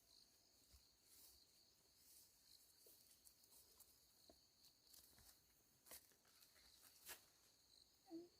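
Near silence outdoors: a faint, steady high insect drone, like crickets, with a few soft ticks and a short faint sound near the end.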